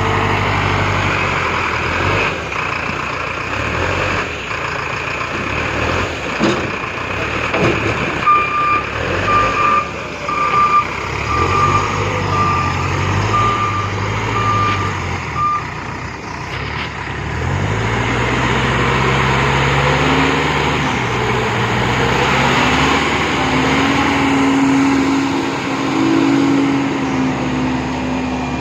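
Bull BS4 backhoe loader's diesel engine running, its speed changing and revving up in the second half. A reversing alarm beeps about once a second for several seconds in the middle, and a few knocks come in the first half.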